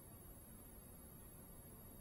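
Near silence: faint steady low hiss of room tone, with a thin, steady high-pitched whine.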